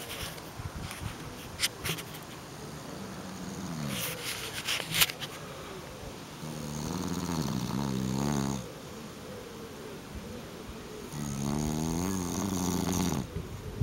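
Snoring: two long snores of about two seconds each, one starting around six and a half seconds in and one near the end, with a fainter snore around three seconds in. A few sharp clicks around four to five seconds in.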